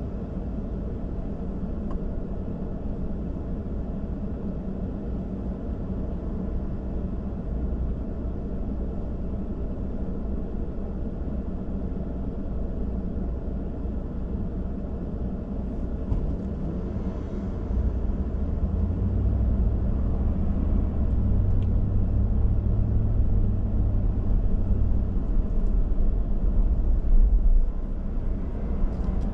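A car being driven: a steady low engine and road rumble, growing louder about two-thirds of the way through.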